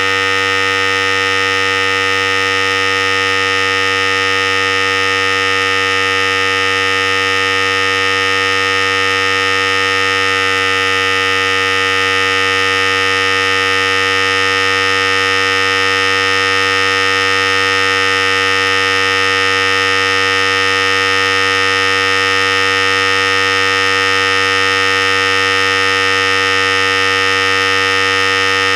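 Philips Series 5000 hair clipper running steadily at one unchanging pitch.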